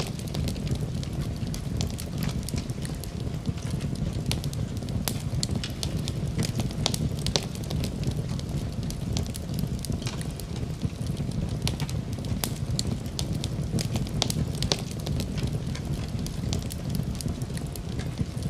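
Wood fire in a fireplace crackling, with irregular sharp pops scattered over a steady low rumble of the flames.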